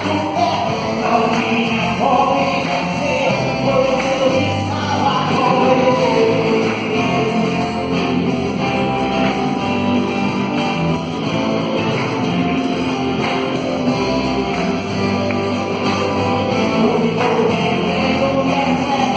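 A gospel band playing a worship song with singing over bass and guitar, steady and full throughout.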